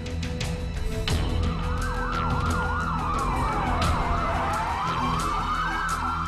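Two emergency-vehicle sirens come in about a second in and overlap: one in a fast up-and-down yelp, the other in a slower rising and falling wail. Both play over background music with steady low tones and regular percussive hits.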